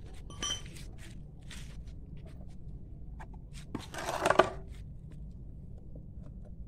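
Handling noise from a mould's outer shell being lifted off its cast: scattered light clicks and knocks, and a louder scrape about four seconds in.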